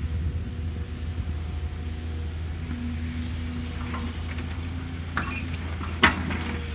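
Excavator diesel engine running steadily with a low hum, with a few sharp metallic clanks, the loudest about six seconds in.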